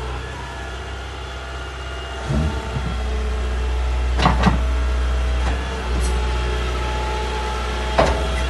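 Liebherr A 311 wheeled excavator's diesel engine idling steadily, with a few sharp knocks about two, four and eight seconds in.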